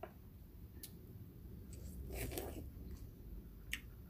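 A plastic clamshell strawberry box being handled and opened: a few faint clicks and a short crinkling rustle of thin plastic about two seconds in.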